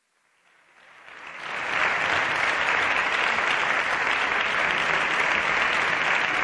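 Applause, fading in over about the first two seconds and then holding steady.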